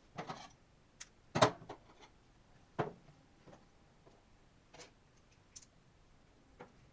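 Irregular clicks and light knocks as a laptop and its parts are handled during repair, about eight in all, the loudest about one and a half seconds in.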